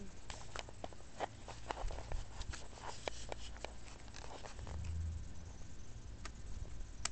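Handling noise: scattered light clicks and rustles, a brief low rumble about five seconds in, and a sharp click near the end. The RC plane's motor is not running.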